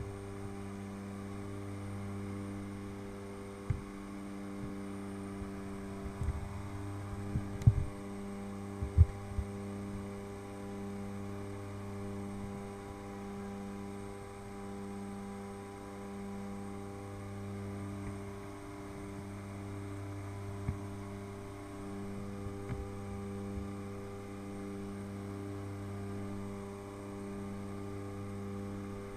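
Aircraft engines and propellers droning steadily inside the cabin of a jump plane in flight, the drone swelling and fading in a slow, even throb. A few short sharp knocks come through, mostly between about four and nine seconds in.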